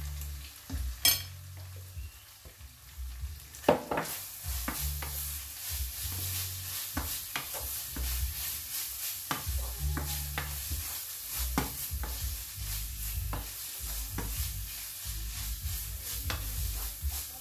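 Minced beef sizzling in a frying pan while being stirred with a wooden spoon, the spoon scraping and knocking against the pan at irregular moments. The sizzle grows louder about four seconds in.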